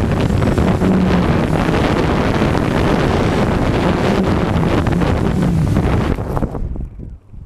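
Hexacopter's six Cobra 2208 2000kv brushless motors spinning 6-inch props, heard from the onboard camera with heavy wind buffeting on the microphone; the motor pitch wavers up and down. Near the end the motors spool down and cut off as the craft comes to rest in the grass.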